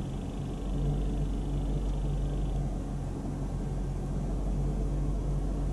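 Mercedes AMG 55 V8 engine idling in neutral: a steady, even low hum.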